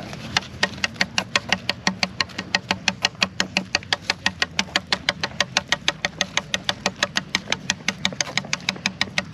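ATV engine idling with a steady hum and an even, sharp ticking at about five ticks a second.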